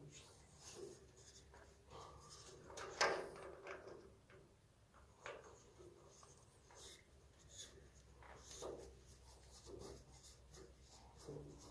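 Honeywell HR92 radiator thermostat head being screwed by hand onto a Heimeier valve: faint plastic-on-metal rubbing and small clicks as it is turned, with one sharper click about three seconds in.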